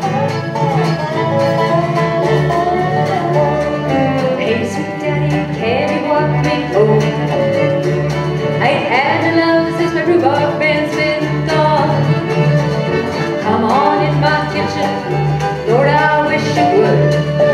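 Live bluegrass band playing an instrumental passage: fiddle and resonator guitar over acoustic guitar and upright bass, with several sliding notes.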